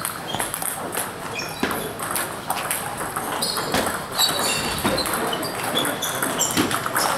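Table tennis balls clicking off bats and tables in quick, irregular knocks: a rally mixed with the play at neighbouring tables.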